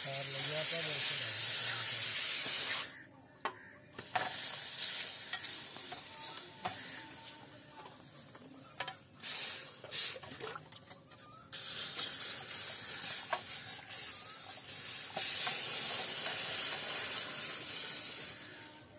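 Hot leaf-spring steel cleaver blade quenched in a bowl of water, hissing and sizzling as it hardens, with splashing as it is moved about. The hiss comes in stretches with short pauses and stops just before the end.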